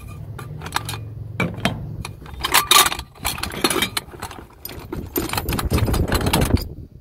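Aluminium solar-panel mounting rails clattering and clinking against each other, the bucket and the corrugated metal roof as they are handled and laid down: a string of sharp clicks and knocks, busiest near the end.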